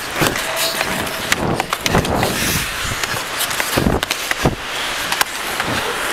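Hockey being played on the ice: a steady scraping hiss of skates, broken by many sharp clacks and knocks of sticks and puck and a few heavier thuds.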